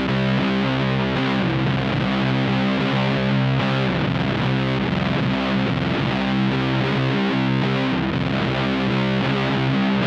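Electric guitar played through a one-knob fuzz pedal into a '69 Laney Supergroup valve amp: a slow, heavily distorted riff with thick, sustained chords.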